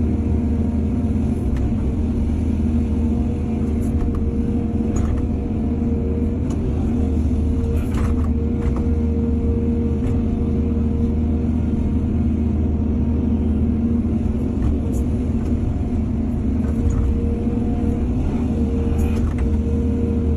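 Excavator's diesel engine running steadily under load, a deep drone with a steady whine over it and a few short knocks scattered through.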